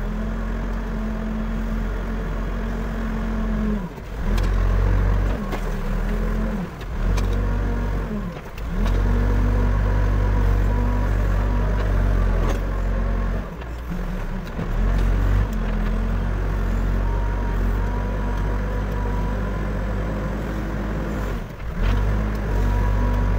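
Backhoe loader's diesel engine running steadily, its note dropping off briefly and picking up again several times as the machine works.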